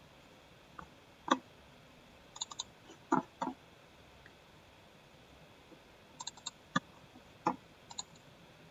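Computer mouse button clicks, single clicks and quick double-clicks, about a dozen scattered in small groups across a few seconds.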